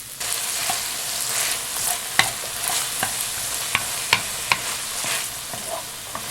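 Food frying in a pan, a steady sizzle that gets louder just after the start. A utensil stirring it knocks and clacks against the pan at irregular moments, a few of the knocks sharp and loud.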